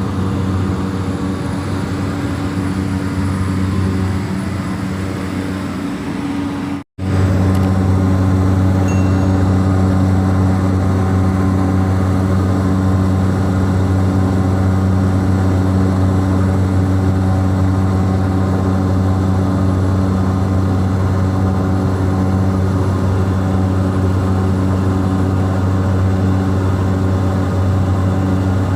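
Steady drone of a small propeller aircraft's engines heard inside the cabin in flight, a low hum with a few evenly spaced tones. The sound cuts out for a split second about seven seconds in, then resumes unchanged.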